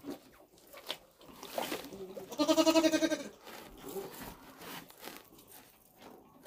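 Newborn Dexter calf giving one short, wavering bleat about two and a half seconds in, amid faint rustling in the straw.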